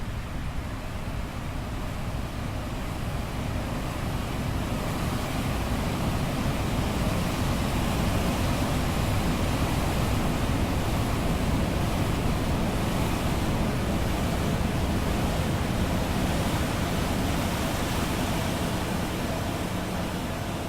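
Beach wind and ocean waves, processed into a steady, spooky rushing noise that swells over the first few seconds and eases off near the end.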